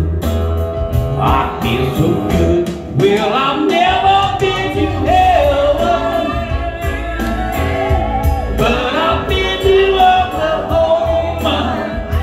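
Live band music: a man singing into a microphone over a steady bass line and drum beat, amplified through PA speakers.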